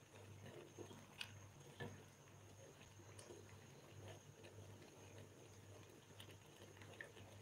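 Faint stirring of milk for kheer in a metal saucepan with a wooden spoon: soft repeated swishes about twice a second, with a few light clicks of the spoon against the pan, over a steady low hum.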